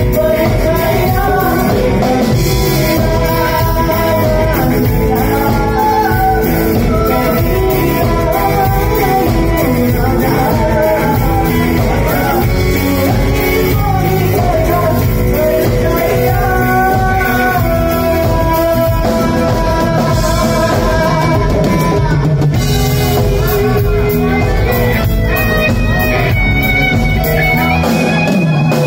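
Live band, with drum kit and guitar, playing a song while men sing into microphones; near the end the voices drop out and the band plays on.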